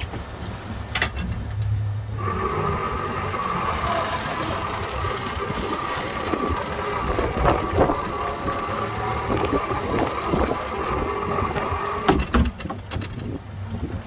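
A motor's steady whine starts about two seconds in and holds for about ten seconds before cutting off, over a low engine rumble.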